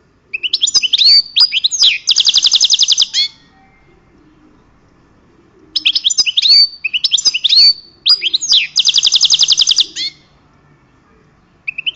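A songbird singing loud, high-pitched phrases of quick swooping whistled notes. The first and third phrases end in a fast, even trill lasting about a second, with pauses of a few seconds between phrases, and a new phrase begins near the end.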